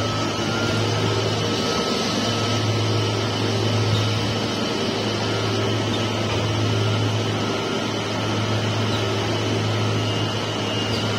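Roller-type plywood saw cutting machine running: a steady low motor hum with faint constant high tones over an even mechanical noise.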